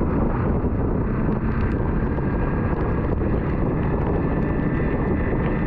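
Yamaha WR155's single-cylinder engine running at a steady cruise, mixed with wind and rain noise on the bike-mounted camera's microphone in a heavy downpour.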